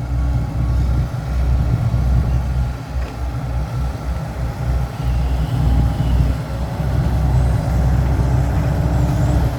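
Heavy diesel dump-truck engine running steadily, a low uneven rumble with faint steady tones above it.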